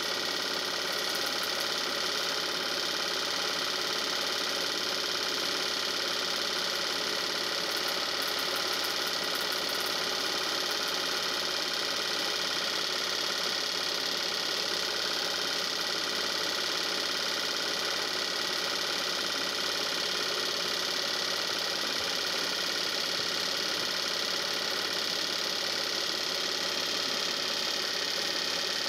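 8 mm film projector running steadily: the even mechanical sound of its film transport and motor.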